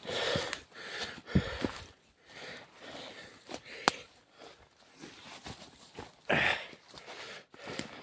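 Footsteps and heavy breathing of a hiker walking uphill, with a few sharp clicks along the way.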